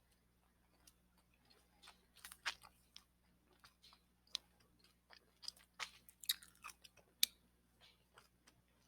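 Faint, irregular clicks and taps, a dozen or more, thickest and loudest in the middle, over a faint steady low hum: handling noise at the recording device.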